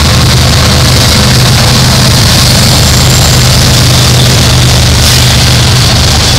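Norfolk Southern diesel-electric freight locomotives passing close by one after another. Their engines make a loud, steady, low drone over the rumble of wheels on the rails.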